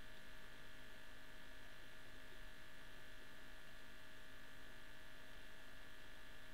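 Quiet room tone: a steady electrical hum and hiss with no other sound.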